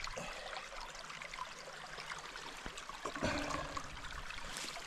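Open river water trickling and running, with small clicks of handling and a brief louder noise about three seconds in.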